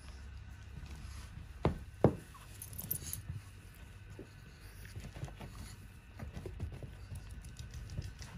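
A small dog's harness being unfastened and taken off. Two sharp clicks about two seconds in, as its buckle comes undone, then faint scattered ticks and rustles of the harness and leash being handled.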